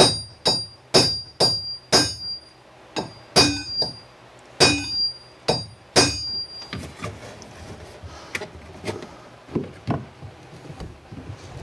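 Hammer blows on steel, about a dozen sharp ringing strikes in the first six seconds, then lighter scattered knocks. They are used to knock a wheel part loose on an old ATV, and the part comes free just after.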